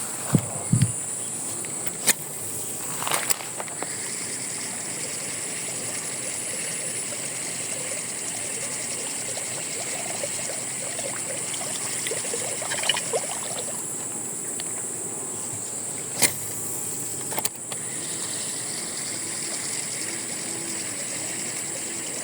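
Steady, high-pitched chorus of insects, with a few sharp clicks or knocks near the start and again about two-thirds of the way through.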